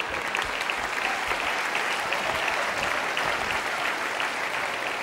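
A theatre audience applauding steadily, a dense patter of many hands clapping.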